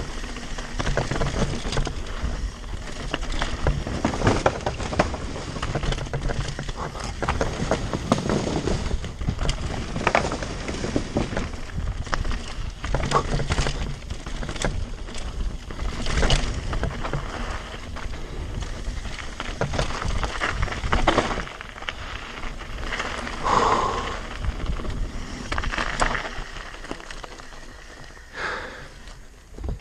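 Devinci Spartan carbon mountain bike descending a rocky dirt trail at speed: tyres crunching over stones and dirt, with constant rattling and knocks from the bike as it hits rocks and roots. It gets quieter near the end.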